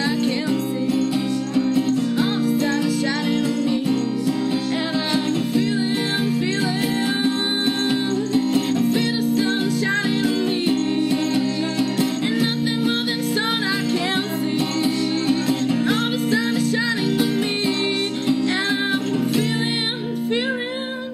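A song played on acoustic guitar, with a voice singing over it.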